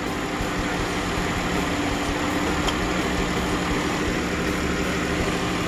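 Dodge Journey engine idling steadily, running warm so that air can bleed out of the cooling system after a thermostat replacement.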